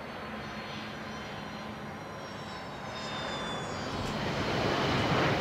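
Beriev Be-200's two turbofan engines as the amphibian flies past. A high whine slowly falls in pitch over a steady engine rush, which grows louder toward the end.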